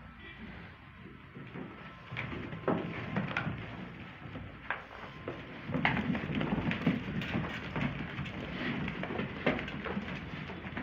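A flock of Merino sheep milling about in a pen: scattered knocks and scuffs of hooves and jostling bodies, busier from about halfway in.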